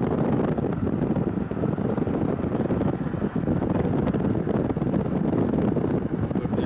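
Wind rumbling steadily on the microphone, a dense low noise without any clear tone.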